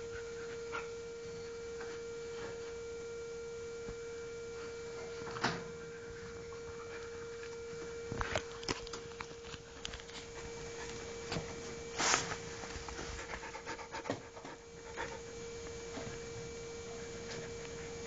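Samoyed dog panting in short spells, with a few light knocks and scrapes, the loudest about five and twelve seconds in, over a steady electrical hum.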